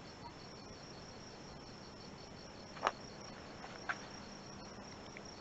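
Night chorus of crickets: a steady, finely pulsing high-pitched trill. Two short sharp clicks, about a second apart, stand out near the middle.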